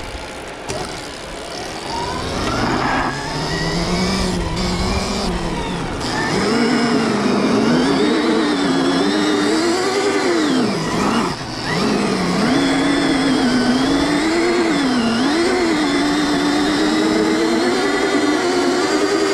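Stark Varg electric dirt bike's motor whining under hard throttle during a rolling burnout, the rear tyre spinning on the surface. The whine's pitch rises and falls repeatedly as the throttle is worked, louder from about six seconds in, with a brief drop near the middle.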